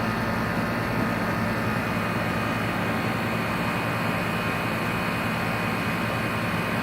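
Outdoor air-conditioner compressor unit running, a steady mechanical hum with fan noise.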